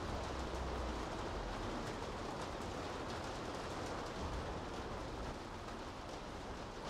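Steady rain falling on a city street, with a low rumble underneath that swells and fades.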